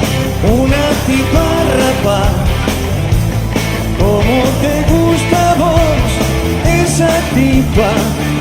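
Rock song: a singing voice over a band with a steady beat.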